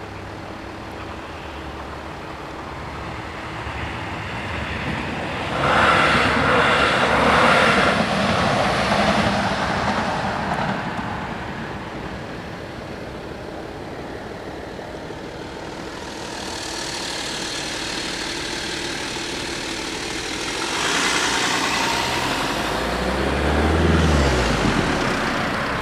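Road vehicles passing. A loud pass about six to ten seconds in, then near the end a car drives over the level crossing close by, its engine note falling as it goes past.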